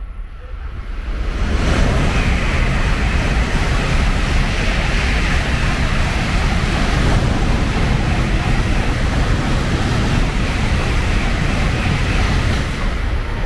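N700A Shinkansen passing through the station at speed without stopping: a loud rushing noise of wheels and air that builds over the first two seconds, holds steady for about eleven seconds, and begins to fade near the end.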